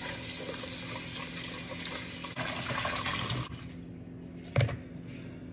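Kitchen faucet running into a plastic tub of cut redfish chunks, the water splashing as the fish is rinsed. The water sound stops about three and a half seconds in, and a single sharp knock follows a second later.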